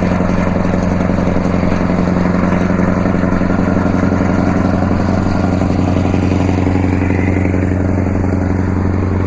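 Scania S650's open-piped 16-litre V8 diesel running at a steady pace on the highway, a deep, even exhaust note with no muffler.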